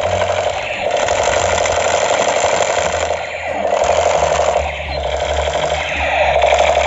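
Battery-powered Spider-Man toy AK-47 firing its electronic machine-gun sound effect, a rapid rattle kept up with short breaks about three and five seconds in.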